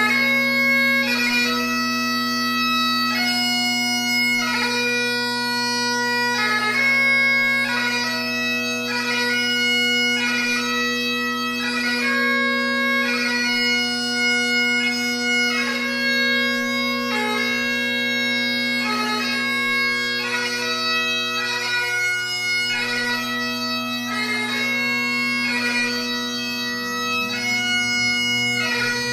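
Great Highland bagpipe played solo: a melody of changing held notes over steady, unbroken drones.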